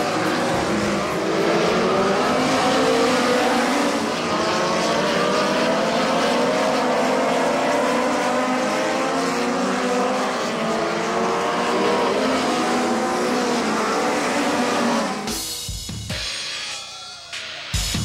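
A pack of winged midget race cars running together on a dirt oval. The engines overlap and rise and fall in pitch as they go through the turns. About fifteen seconds in the sound drops away sharply.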